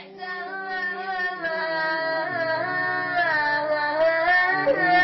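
A boy's solo voice singing an Iraqi mournful lament in long, drawn-out, wavering melismatic notes, growing louder over the first couple of seconds.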